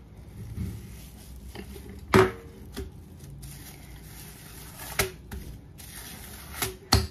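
Cast-iron tortilla press being worked over masa: a few sharp knocks from the lid and handle, the loudest about two seconds in, with light rustling of the plastic sheet between them.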